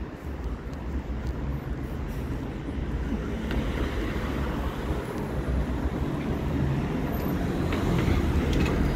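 Road traffic noise: a steady low rumble that grows gradually louder.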